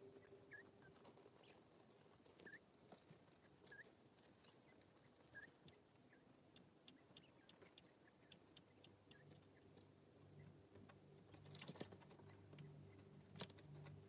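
Faint, sparse peeps of baby quail and chicks, with soft ticking and scratching of small beaks and feet on straw bedding and two sharper clicks near the end.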